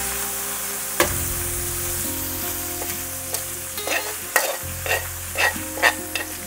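Venison liver and onions sizzling in hot bacon grease in a frying pan while they are scraped out with tongs. A metal utensil clicks and scrapes against the pan several times in the second half.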